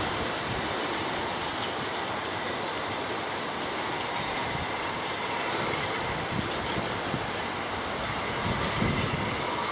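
A convoy of rail-converted golf carts approaching along the track, their wheels clicking and rumbling on the rails. The knocks come more often and a little louder in the second half. Underneath is a steady high hiss.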